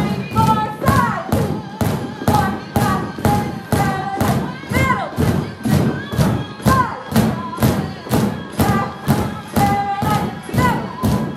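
Drumsticks beating on inflated exercise balls in a steady rhythm, about two strikes a second, in time with upbeat music that has a singer.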